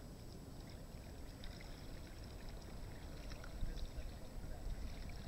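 Kayak paddle dipping and dripping in the water, faint light splashes and trickles over a steady low rumble.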